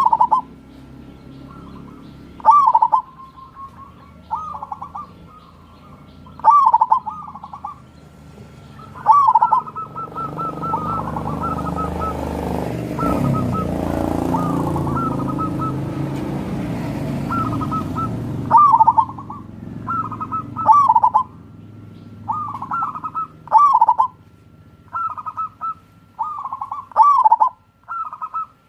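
Zebra dove (perkutut) singing: short trilled cooing phrases repeated every second or two. A low rumble swells up through the middle and fades again.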